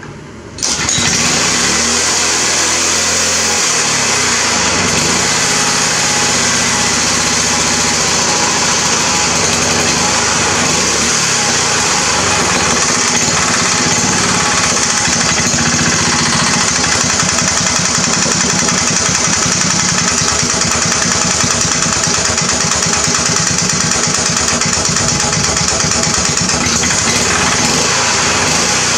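Small pull-start go-kart engine catching on the rope pull about a second in after a shot of gas, then running steadily.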